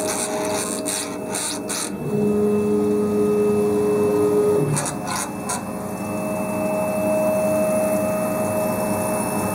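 Gantry drive motor of a laser cutter making servo noise. It starts as a rasping, clicking buzz, then settles into a steady low whine about two seconds in. The whine drops out near the middle with a few clicks and comes back at a higher pitch.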